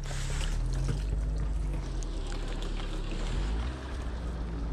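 Paint thinner poured from a bottle into a car's fuel tank, a steady pour over a low engine hum.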